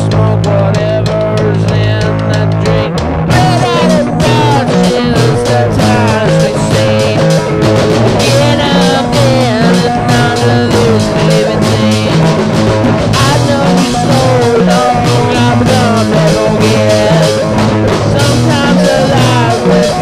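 Folk-rock band music with guitar, bass and drum kit. Held low chords open it, and the drums come in about three seconds in and keep a steady beat.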